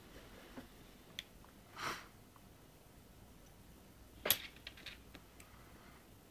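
Faint handling noise of a small handheld sat nav held in the hand: a light click, a soft rustle about two seconds in, and a sharp click a little after four seconds followed by a few lighter clicks.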